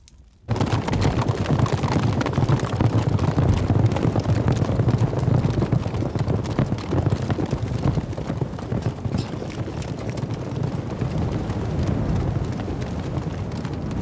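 A band of horses galloping, a dense rumble of many hoofbeats that starts suddenly about half a second in.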